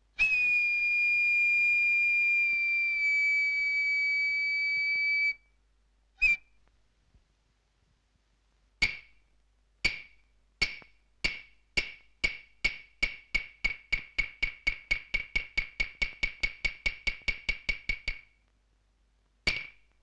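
Hyoshigi, the kabuki wooden clappers that close a play: single sharp strikes a few seconds apart that speed up into a fast run of strikes, stop, and are followed by one last strike near the end. Before them a shrill whistle-like note is held for about five seconds, dropping slightly in pitch midway.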